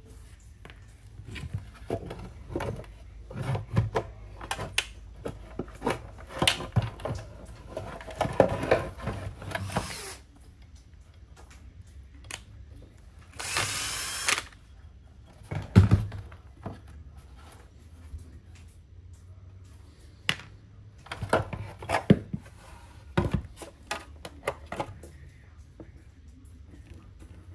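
A cordless drill-driver runs for about a second, driving a screw on a pressure washer's motor housing, amid a run of clicks, knocks and clatters of small parts and tools being handled, with a few louder thumps.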